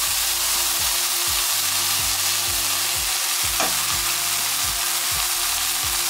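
Onions and freshly added tinned plum tomatoes sizzling in hot oil in a frying pan, a steady hiss.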